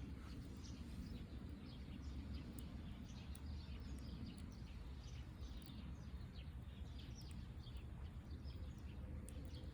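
Small birds chirping, many short quick calls, over a steady low background rumble.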